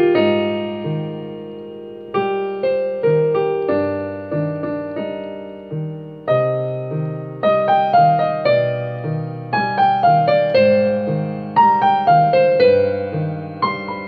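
Solo piano playing a melody over low bass notes. The notes come in phrases, each struck and left to ring and fade, with brief lulls between phrases.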